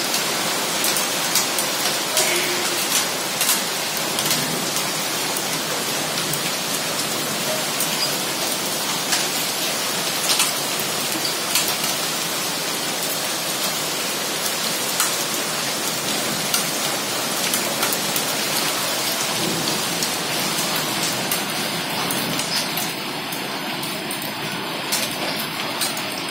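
Heavy rain mixed with hail: a steady dense hiss, dotted with scattered sharp ticks of hailstones striking hard surfaces.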